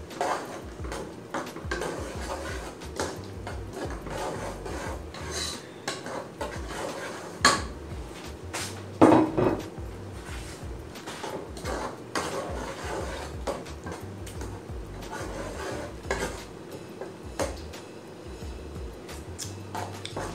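Metal ladle stirring a thick sauce in a cooking pot, scraping and clinking irregularly against the sides and bottom as cheese is stirred in to thicken it. Two louder knocks come about seven and nine seconds in.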